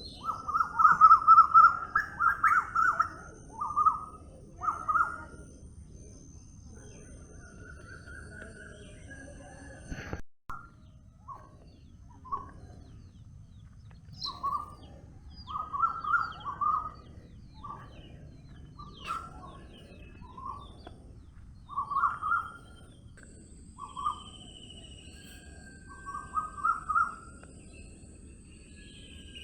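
Several wild birds singing: one nearer bird repeats short, clear phrases again and again, and fainter birds add thin, high notes over a steady low background hiss. A brief click and momentary dropout come about ten seconds in.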